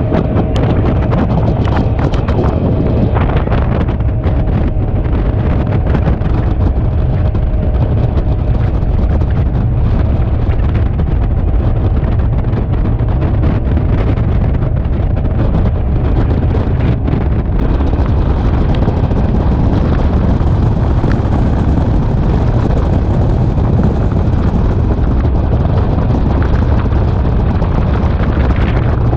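A fishing boat running at speed, its motor drone mixed with heavy wind buffeting the microphone, steady and loud throughout.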